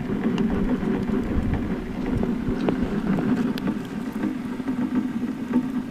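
Wood fire crackling inside an ammo-can stove burning pine cones, with scattered sharp pops and clicks over a steady low hum.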